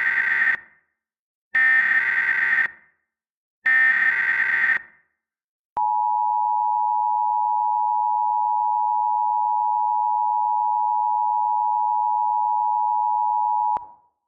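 Emergency Alert System tones opening a new alert: the SAME digital header, three bursts of harsh data screech about a second each, then the EAS attention signal, a steady two-tone sound held about eight seconds before cutting off sharply.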